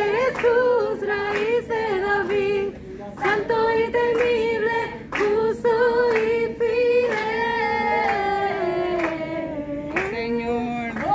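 A woman's voice singing a slow melody with little or no accompaniment, including a long sustained line that slides downward in pitch in the second half.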